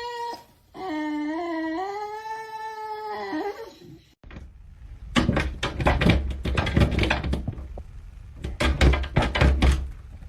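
A pet animal's long, wavering, pitched cry lasting about three seconds, just after the end of a shorter one. About four seconds in there is a cut to music with a heavy bass beat and sharp hits.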